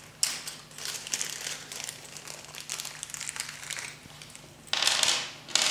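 Crinkling and rustling of packaging as the point motor's small accessory parts are handled, with two louder crinkles near the end.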